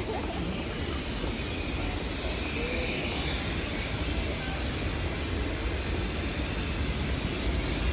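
Steady rumble and hum beside a stopped electric multiple-unit train at a station platform, with no distinct knocks or announcements.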